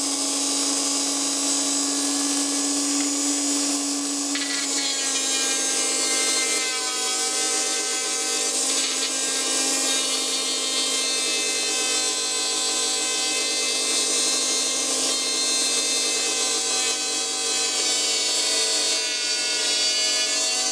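Small brushed motor running flat out with a damaged winding: a steady whine over a hissing crackle of heavy brush arcing, with sparks at both the winding end and the commutator end. About four seconds in, the tone shifts slightly and grows richer.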